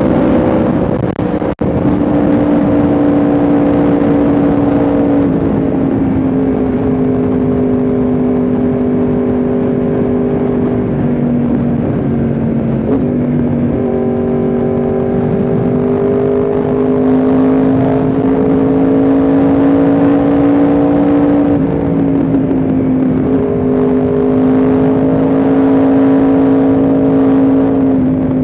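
Yamaha R1M's crossplane inline-four engine running at steady revs while riding, its pitch sagging and climbing a few times as the throttle and revs change. The sound drops out briefly about a second and a half in.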